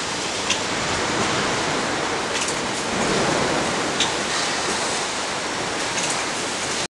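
Steady factory-floor noise, an even rushing hiss, with a few faint short ticks.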